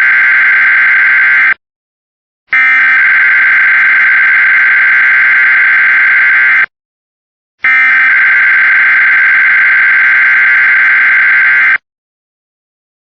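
Loud, buzzy emergency-alert test tone, pulsed on and off. It cuts off about a second and a half in, then sounds twice more for about four seconds each, with a break of about a second between.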